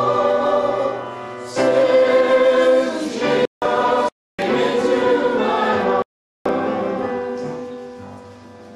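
A choir singing in long held notes. The sound drops out completely three times near the middle, and the singing fades away toward the end.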